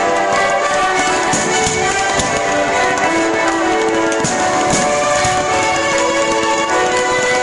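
Music with sustained instrumental notes, broken now and then by sharp cracks.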